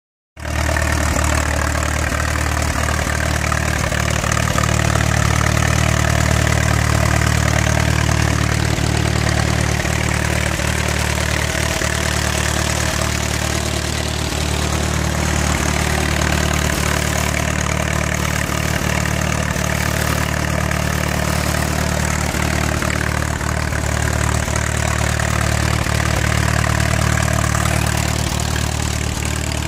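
1937 Case Model C tractor's four-cylinder engine idling steadily.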